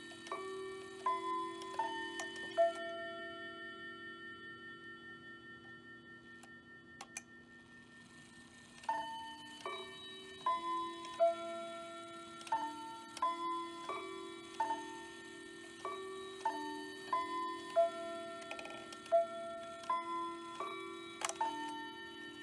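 Hamilton bracket mantel clock's chime movement playing a quarter-hour melody on its chimes: groups of four struck notes about two-thirds of a second apart, each note left ringing. One group dies away into a pause of several seconds, with a single click shortly before the chimes start again.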